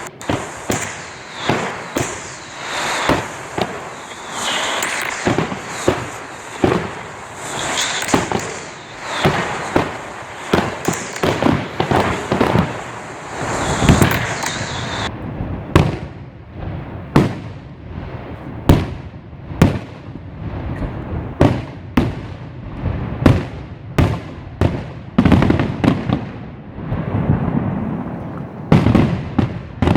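New Year's fireworks going off: many sharp bangs over a dense crackle in the first half. About halfway the high crackle stops abruptly, leaving separate bangs about one or two a second, some with a low rumble.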